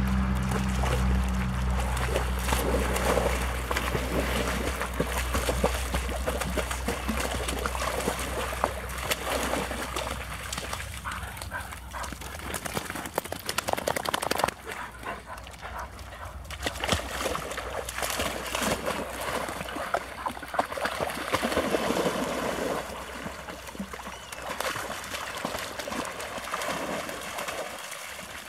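Shallow water splashing and sloshing as two puppies wade and romp through it.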